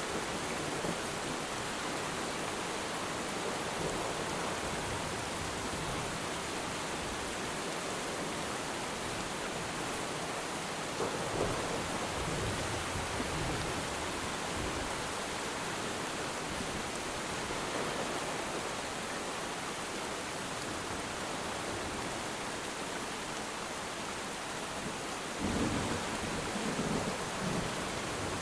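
Steady rain falling on water, a dense even hiss, with a few low rumbles of distant thunder swelling up, the clearest about eleven seconds in and near the end.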